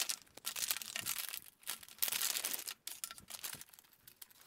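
Crinkling of a thin plastic anti-static bag being handled and opened, in irregular rustling spurts as its contents are pulled out.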